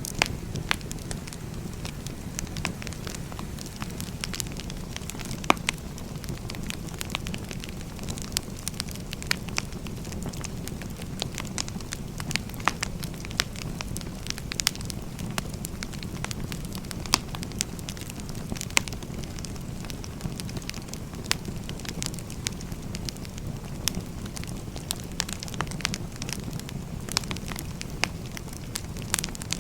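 Firewood burning: irregular sharp crackles and pops over a steady low rumble of the flames.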